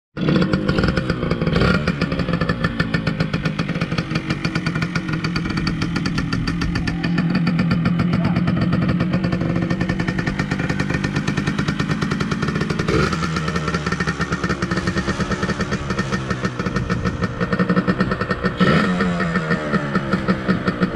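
Older yellow dirt bike's engine running at idle, steady with fast firing pulses, blipped up in pitch briefly a few times.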